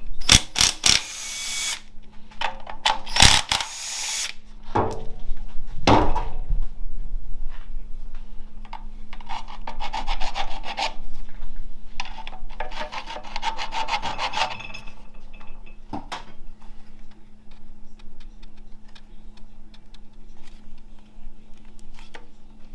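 Mechanic's tools at work on a 4L65E automatic transmission being torn down: sharp metal knocks and clinks, and two longer rasping, scraping bursts of a few seconds each, then quieter scraping and handling of parts.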